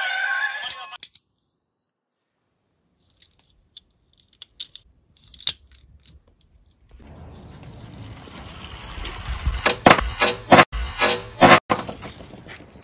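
A warbling police siren cuts off about a second in. After a pause with a few light clicks, a die-cast toy car rattles down a wooden slope and clatters over, with several sharp knocks near the end.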